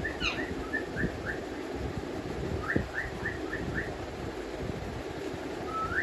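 Alexandrine parakeets chirping: short high calls in two quick runs of about five, one at the start and one a few seconds in, ending with a single rising call. A short sharp knock sounds among the second run of chirps.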